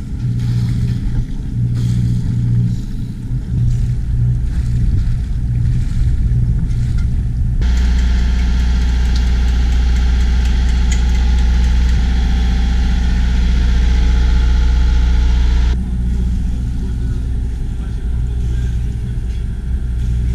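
Boat engine running steadily with a low hum. About eight seconds in it changes suddenly to a deeper, louder rumble with a hiss over it, and about eight seconds later drops back to the lighter hum.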